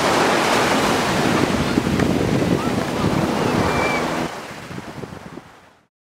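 Ocean waves breaking and washing up the beach, with wind buffeting the microphone. The sound fades out over the last second and a half and stops.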